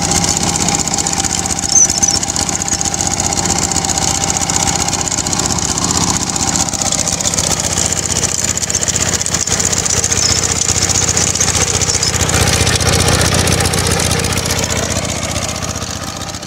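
Kubota K75 hand tractor's single-cylinder diesel engine running steadily while its rotary tiller churns dry soil. It grows a little louder about three-quarters of the way in and fades out near the end.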